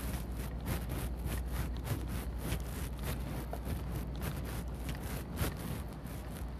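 Footsteps on pavement picked up by a chest-worn body camera, about three steps a second, with clothing brushing against the camera over a steady low hum.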